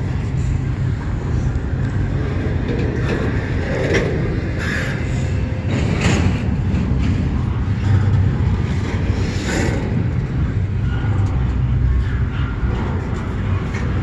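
Double-stack intermodal well cars of a freight train rolling slowly past at close range: a steady rumble of steel wheels on the rails, with a few short, sharper sounds, the loudest about six and nine and a half seconds in.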